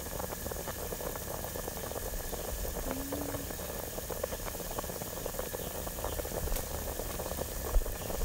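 Chicken feet boiling hard in a pot of water: steady bubbling with many small pops and crackles.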